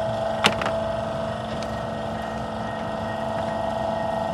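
Steady machine hum with a constant whine, and one sharp click about half a second in.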